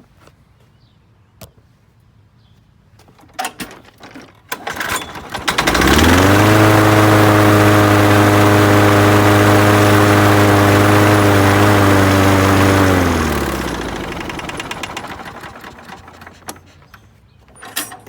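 Craftsman 6.75 lawnmower's single-cylinder engine starting after a few clatters, running steadily for about seven seconds, then dropping in pitch and dying away. It starts and stalls again, which the owner puts down to dirt from the tank seat being drawn back into the freshly cleaned carburetor.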